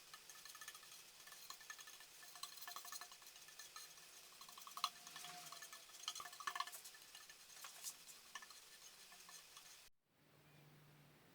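Faint scraping and scratching with small clinks of hand tools, taking the old lacquer off the cash drawer. It stops abruptly near the end.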